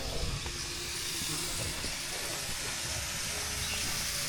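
A steady hiss that grows slightly louder, with a low rumble beneath it.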